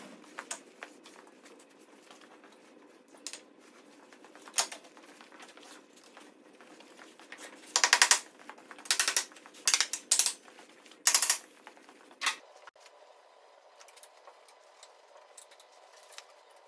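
Hand tools working on a tractor: scattered light metallic clicks, with a run of about five louder clattering bursts in the middle.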